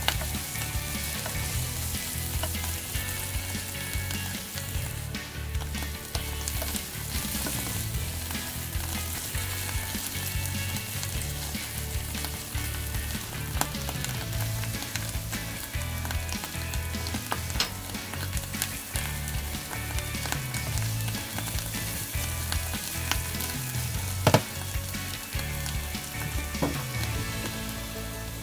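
Morel mushrooms frying in oil in a pan, sizzling steadily, with small clicks from stirring against the pan and one sharp knock about three-quarters of the way through.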